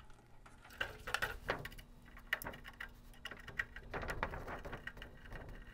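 Faint, irregular clicks and scrapes of a Phillips screwdriver loosening the screws on the underside of a furnace's sheet-metal front panel.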